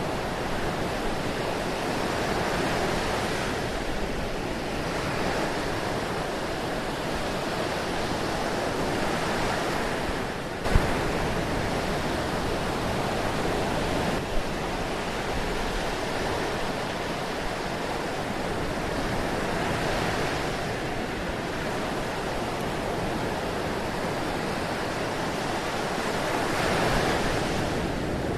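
Ocean surf washing steadily in slow, gentle swells, with one sharp click about ten seconds in.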